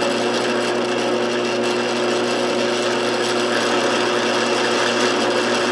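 Drill running steadily at its slowest speed, a masonry bit grinding into a broken hardened steel pin in a gearbox synchro hub to drill it out.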